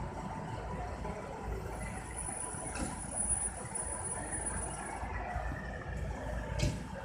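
Idling engines of a fire engine and an ambulance: a low, steady rumble, with two short knocks, one about three seconds in and one near the end.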